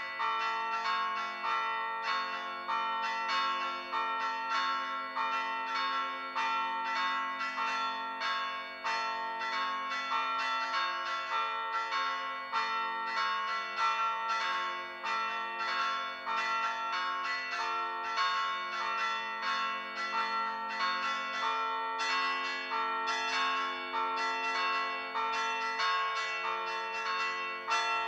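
Bronze church bells played by pritrkavanje, the stationary bells struck by hand in a fast, even rhythm of about three strokes a second, several pitches ringing together and overlapping.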